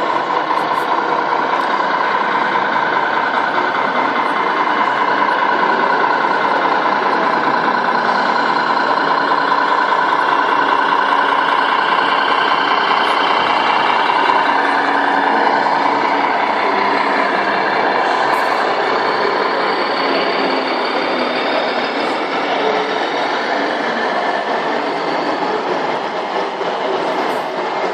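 Steady truck engine sound from the sound modules of 1:14 scale RC trucks running without a break.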